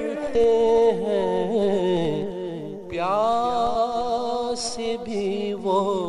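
A man singing an Urdu manqabat, drawing out long wavering melismatic notes. A short break comes about halfway, then a new phrase rises in pitch.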